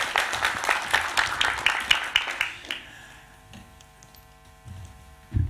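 Audience applauding, dying away about two and a half seconds in and leaving a faint steady hum, with a short low thump near the end.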